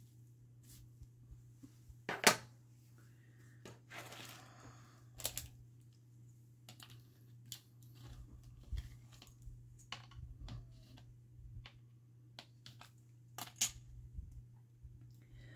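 Scattered light clicks and taps of craft tools being handled on a work table while polymer clay tiles are cut apart, the sharpest click about two seconds in and a short scrape about four seconds in, over a steady low hum.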